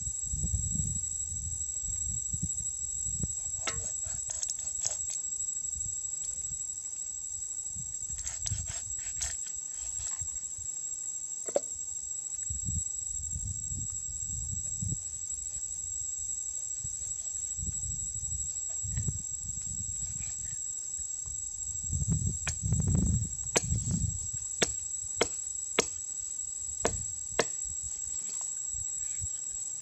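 A large knife cutting up a plucked duck on a wooden log, with a series of sharp knocks about a second apart in the last third as the blade chops down into the wood. A steady high insect buzz runs beneath.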